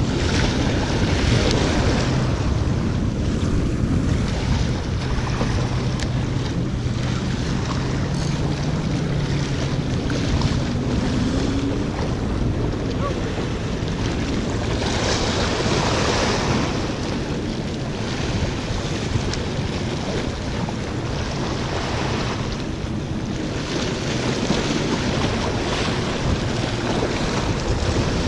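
Small waves washing and breaking against jetty rocks, with wind buffeting the microphone; the surf swells louder twice, about halfway through and again a few seconds later. A faint low hum sits under it for the first ten seconds or so.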